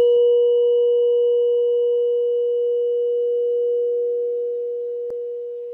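Tuning fork ringing after a strike with a rubber mallet: one steady pure tone with a faint high overtone, slowly fading. A light tick about five seconds in.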